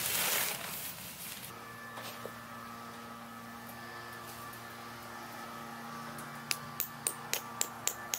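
Nylon tent fabric rustles as it is lifted during the first second and a half. A held chord of background music follows, and a quick, even ticking of about four beats a second comes in near the end.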